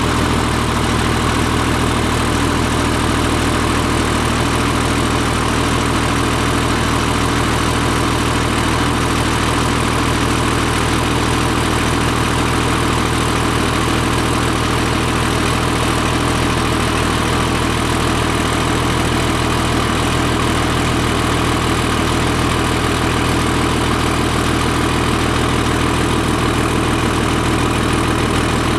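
Cummins 5.9 24-valve inline-six turbodiesel idling steadily on a cold start at 13°F, heard at the exhaust tip. This is where the engine's 3-cylinder cold high idle is expected to kick in.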